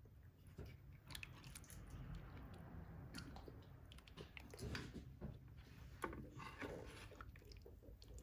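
Silicone-headed spoon stirring and lifting chicken leg quarters in broth in a multicooker pot: faint, scattered clicks and soft handling noise of the spoon against the pot and the food.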